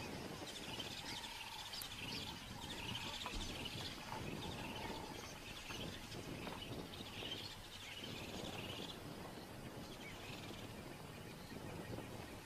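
Birds chirping repeatedly over a steady outdoor background noise.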